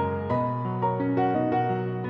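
Background music: a gentle piano melody of single notes over held chords.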